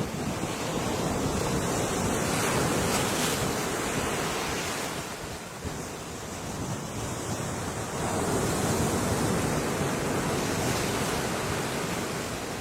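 Ocean waves breaking and washing in as a continuous rush of surf, swelling about two seconds in and again about eight seconds in.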